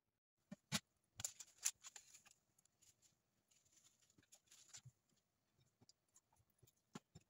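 Faint kitchen handling noises from hands working raw chickens in a roasting tray: a few sharp clicks and knocks, the loudest in the first two seconds and another pair near the end, with short spells of crinkly rustling.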